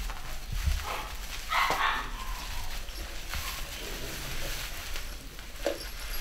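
Scottish Terrier puppies at play giving a few short yips, the loudest about one and a half seconds in.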